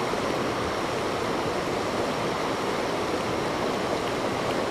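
River water rushing over a low weir close by: a steady, even rush of whitewater.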